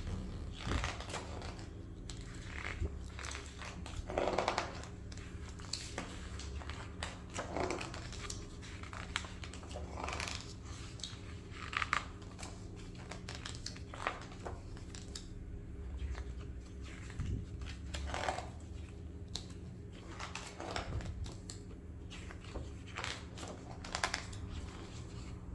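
Pages of a large hardback coffee-table photo book being turned one after another, each turn a short papery swish and rustle, roughly one every one to two seconds, over a faint steady low hum.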